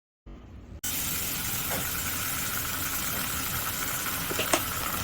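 Oil sizzling in a frying pan: a steady hiss that starts abruptly about a second in, with a few sharp pops near the end.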